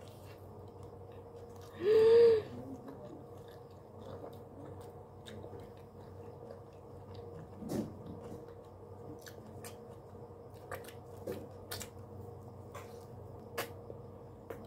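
A person chewing a mouthful of food with the mouth closed: soft wet mouth clicks and smacks scattered throughout. About two seconds in there is a loud hummed 'mm' of enjoyment. A steady hum runs underneath.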